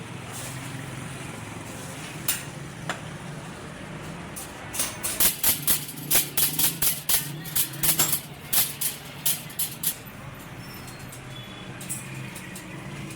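Metal being hammered: two single sharp knocks, then a run of about twenty ringing blows, roughly three a second, from about five to ten seconds in, over a steady low hum.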